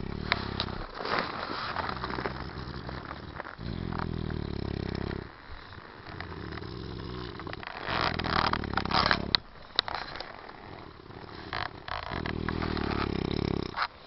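A man snoring heavily: a loud, low snore roughly every four seconds, each one to two seconds long, with sharp clicks and crackles in between.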